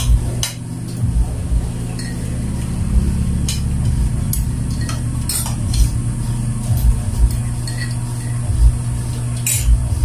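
Metal spoons clinking and scraping against ceramic plates and a coffee mug as people eat, a scatter of sharp clicks over a steady low hum.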